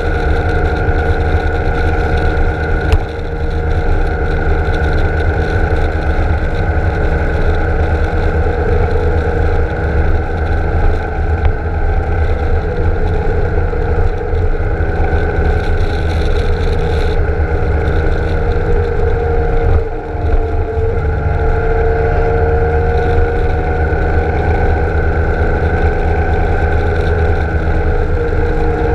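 BMW K1600 GTL's inline-six engine running steadily at road speed, with a low wind rumble on the microphone. The engine note dips briefly about twenty seconds in and shifts slightly near the end.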